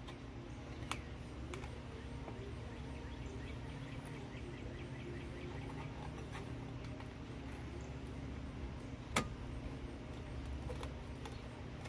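Occasional small metal clicks of bolts and washers being handled while a toy backhoe's linkage is put back together, with one sharper click about nine seconds in, over a steady low hum.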